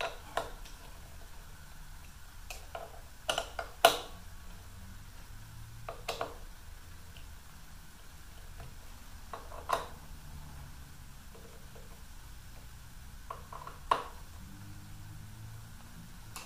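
A handful of sharp metallic clicks and taps, spaced irregularly, as a Torx driver is worked into the blade-clamp screws on a DeWalt 734 planer's cutterhead to hand-tighten them; the loudest click comes about four seconds in. A faint low hum sits underneath.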